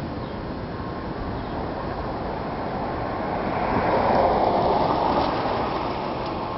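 Steady outdoor street noise, with a vehicle passing by: a rushing sound that swells about three seconds in and fades away a couple of seconds later.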